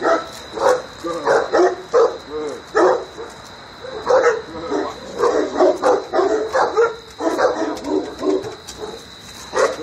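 Five-month-old Cane Corso puppy barking repeatedly in short bursts, alert barks at a person standing still, with a brief lull about three seconds in.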